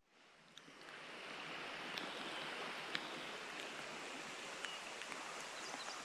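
Steady rush of rain falling on a shallow creek and the creek's running water, fading in over the first second or so after a moment of near silence, with a few faint raindrop ticks.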